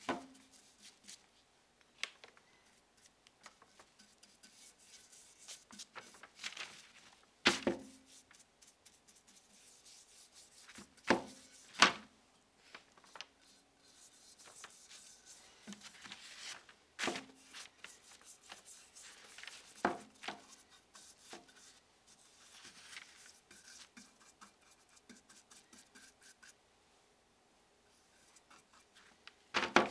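Bristle brush stroking a pine tar and linseed oil finish onto a wooden axe handle: soft, repeated rubbing and scratching. A handful of sharp knocks punctuate it, the loudest about 7 and 12 seconds in.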